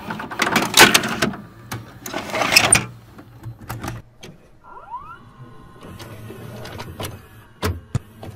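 VHS cassette pushed into a VCR and drawn in by its loading mechanism. There are two loud clatters in the first three seconds, then scattered clicks, a short rising motor whine about five seconds in, and a low hum with a few more clicks near the end.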